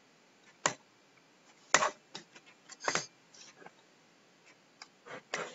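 A stylus tapping and clicking on a writing tablet: about eight short, sharp taps at uneven intervals, the loudest about two seconds in.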